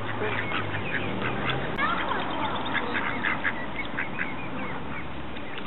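Mallard ducklings calling on the water: many short, high peeps in quick succession, overlapping.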